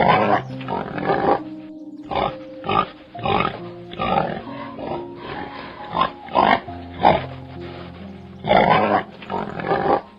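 Pig grunting in short, rough bursts at irregular intervals, with one longer grunt near the end, over background music with held notes.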